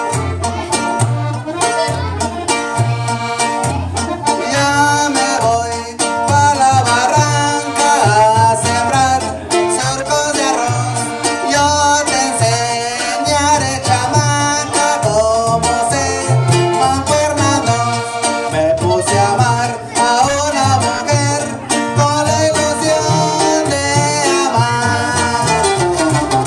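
Live norteño music: a button accordion playing the melody over strummed bajo sexto and an upright bass plucking a steady two-beat pulse.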